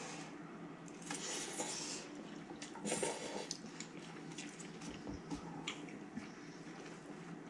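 Quiet eating of instant cup noodles: metal forks clicking and scraping in the noodle cups, with short slurping hisses about one and three seconds in.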